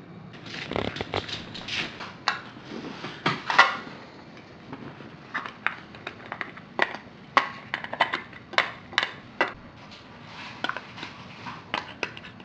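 Border collie gnawing on a hard chew item: irregular sharp crunches and clicks that start about half a second in, coming in uneven clusters.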